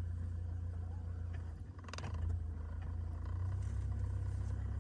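UAZ Patriot engine idling steadily, with one short knock about two seconds in. This is the unexplained knock the driveline gives when the clutch is worked while the vehicle is rocked in first gear.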